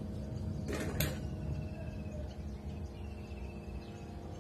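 Outdoor background noise with a steady low hum, a short sharp sound about a second in, and a faint high trill heard twice.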